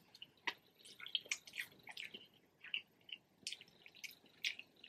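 Faint, close-miked chewing of saucy palabok rice noodles: irregular wet mouth clicks and smacks.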